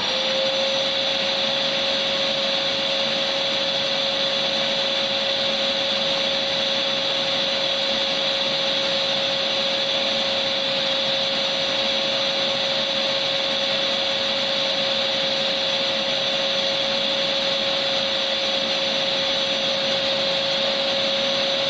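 Electric vacuum cleaner motor running steadily: an even rushing of air with a constant whine.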